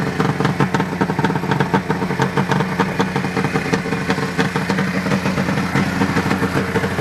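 Arctic Cat ZRT 800 snowmobile's three-cylinder two-stroke engine idling steadily and loudly through its ZRT exhaust can.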